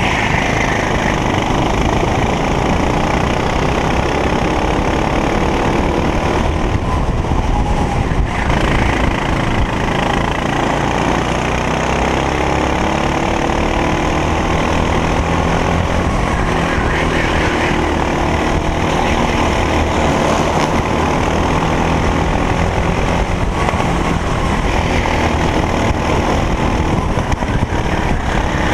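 Racing kart engine heard close up from onboard at full race pace, its pitch repeatedly winding up along the straights and dropping back as the throttle comes off for corners.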